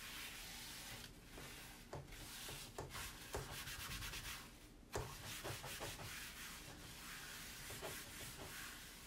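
A damp cloth rubbing back and forth across a washable sign board's smooth surface, wiping off dried chalk paste, with a few light knocks.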